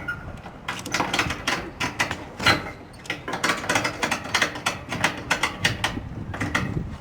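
A ratchet strap being handled and tightened: a steady run of irregular metallic clicks and rattles from the ratchet and its hooks.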